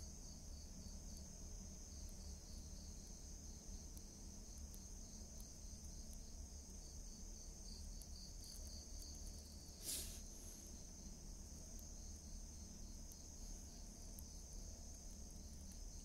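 Faint, steady chorus of crickets trilling in a high even drone, with a softer evenly pulsing chirp beneath it. A single short click about ten seconds in.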